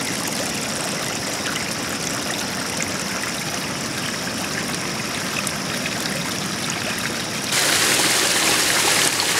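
Flooded river water rushing over rocks, a steady noise of flowing water. About seven and a half seconds in, a louder splashing rush of water lasts about two seconds.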